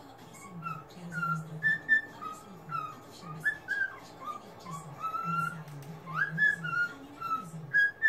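Cockatiel singing its courtship song: a running warble of short whistled notes that slide up and down, with a quick rising whistle about six seconds in.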